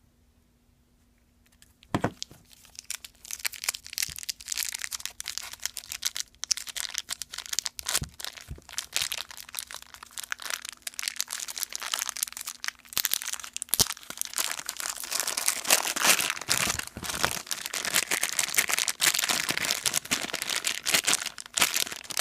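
Plastic wrapping crinkling and tearing as a small Play-Doh tub is unwrapped by hand, with sharp clicks of hard plastic. It starts with a single click after a short near-silent pause, and the crinkling grows denser toward the end.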